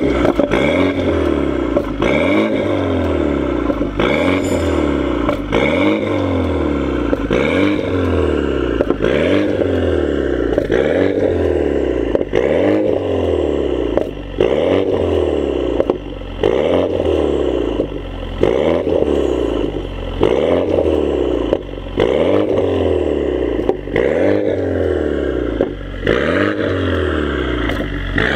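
BMW running through an aftermarket valved full exhaust system with quad titanium tips, revved again and again. Each rev rises and falls in about two seconds, with brief drops in level between some of them.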